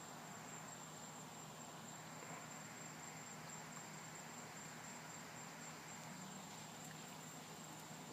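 Faint, steady background hiss with a thin, steady high-pitched tone over it; no thunder or other sudden sound.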